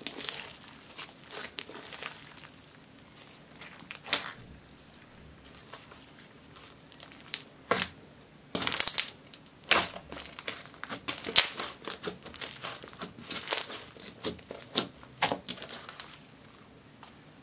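Glittery slime being squeezed, folded and stretched by hand, giving irregular wet crackles, pops and squelches. The crackling thins out for a few seconds about a third of the way in, then comes back busier and louder.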